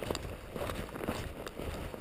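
Footsteps crunching in snow on a trail, an uneven run of several steps.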